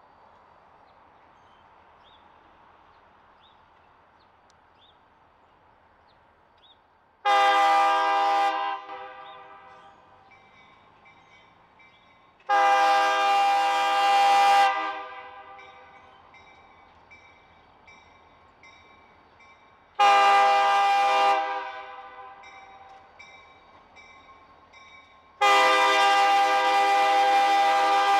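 Diesel locomotive's multi-chime air horn sounding the grade-crossing warning as it approaches a road crossing: four loud blasts, two long, a shorter third, and a long fourth held on. Each blast is a chord of several steady tones.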